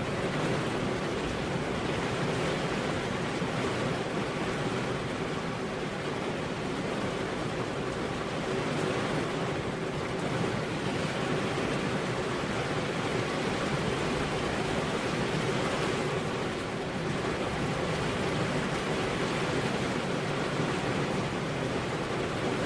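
Steady heavy rain, an even hiss with no thunderclap or gust standing out.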